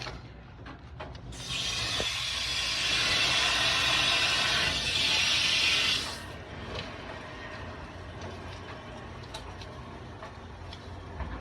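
Water rushing through a plumbing shut-off valve as it is opened to turn the water back on: a loud hiss starts about a second in and cuts off after about five seconds. Light clicks and taps come before and after it.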